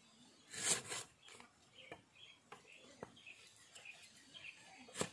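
Cleaver slicing lemongrass stalks on a wooden chopping block. There is a louder, longer cut about half a second in, then a few sharp, spaced-out knocks of the blade on the wood.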